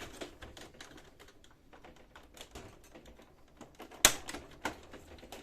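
Light plastic clicks and taps from a Brother laser printer's casing panels being handled and unclipped, with a sharp snap about four seconds in and a smaller one just after.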